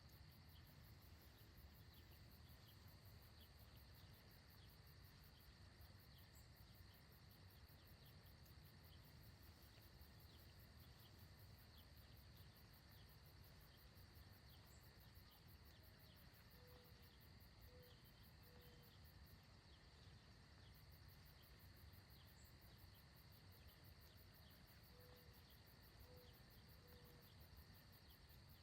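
Very faint outdoor ambience: a steady high insect chorus of crickets, with two small groups of three short low notes, one past the middle and one near the end.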